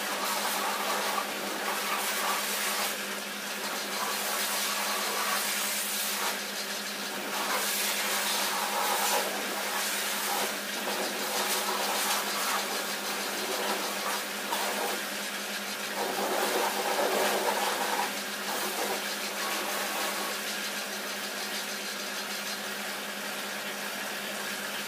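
High-pressure water jet hissing against a lifted car's underbody and wheel arches and onto the wet concrete floor, swelling and easing as the jet moves. A steady hum from the pressure washer's motor-driven pump runs underneath.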